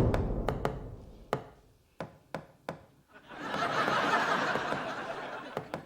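Knocking on a wall in short Morse-code taps: a few sharp knocks in uneven groups, then studio audience laughter for about two seconds, then two more quick knocks near the end.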